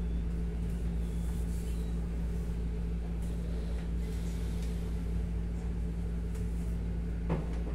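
Steady low mechanical hum of a wall-mounted air conditioner, with faint rustling of hands massaging a leg and one short click about seven seconds in.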